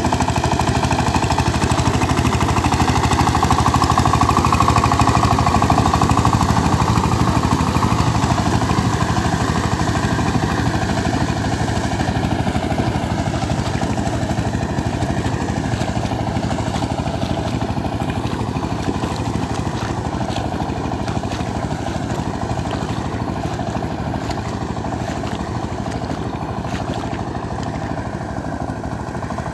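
Two-wheel power tiller's single-cylinder diesel engine running steadily under load with a fast, even chugging, working through flooded paddy mud on a trial run after repair. It grows gradually fainter as the tiller moves away.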